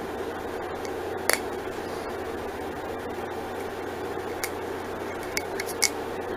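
Steady room noise with a low hum and hiss, broken by a few short, sharp clicks and taps: one about a second in and a cluster of four or five in the last two seconds.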